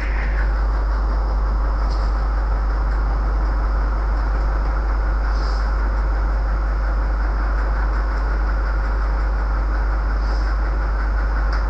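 Steady low rumble and hiss of background noise, unchanging in level, with a few faint high ticks.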